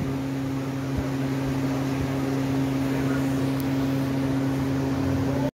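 A steady low machine hum with a rushing of air, running evenly and cutting off suddenly at the very end.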